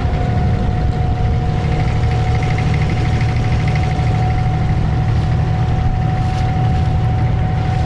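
An abra water taxi's diesel inboard engine running steadily with the boat under way, a constant whine riding above the low engine note.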